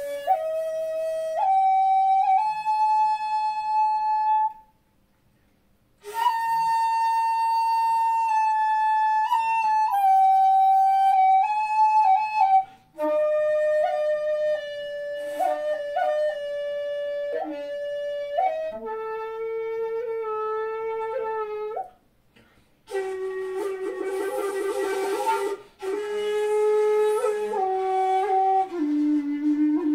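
A 2.4 jinashi shakuhachi in A played solo: slow phrases of held single notes, separated by two short breath pauses. Around two-thirds through, one note comes out very breathy with heavy air noise, and the last phrase steps down to the lowest notes.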